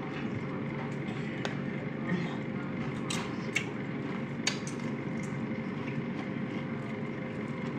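Tortilla chips scooping through thick cheese dip in a ceramic bowl, with a few sharp crackles of chips snapping, over a steady low hum.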